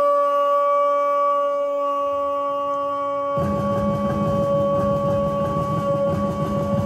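One long note held steady without a break, carried over the ceremony's loudspeakers. About three and a half seconds in, a stadium crowd starts cheering loudly beneath it.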